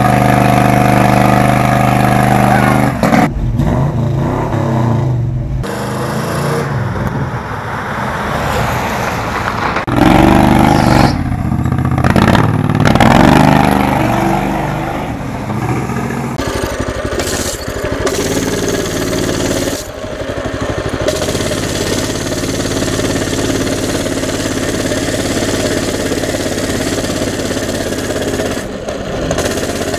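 Minibike's small engine running under a rider, revving up and down with the throttle through the first half, then holding a steadier pitch as it cruises.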